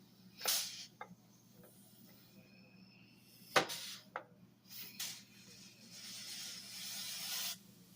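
A few light clicks and knocks of handling metal parts, then a steady hiss of compressed air from an air gun lasting about two seconds near the end: air pressure pushing the brake caliper piston so the dust seal seats over it.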